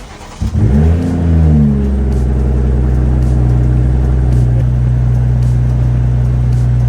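Toyota Supra engine starting about half a second in, revving up briefly and then dropping back to a steady idle.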